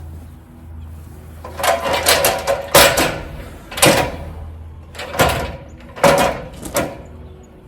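A series of about six loud, sharp clattering knocks, each with a short ring, over a low steady hum that stops about five seconds in.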